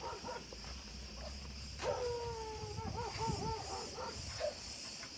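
A dog whining: one long, wavering whine of about two seconds, starting about two seconds in, over a steady high chirring of insects.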